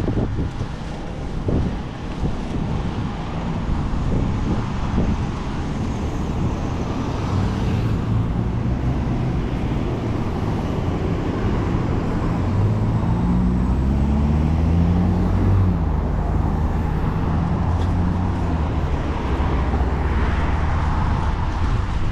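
Road traffic noise with a steady rumble of wind and road, heard from a moving bicycle. In the second half a motor vehicle's engine hum comes close, rising and falling in pitch.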